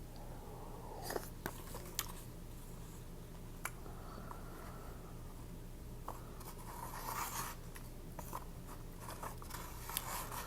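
Close-miked mouth sounds of eating noodles: scattered wet clicks and smacks, with longer hissing swells about seven seconds in and again near the end.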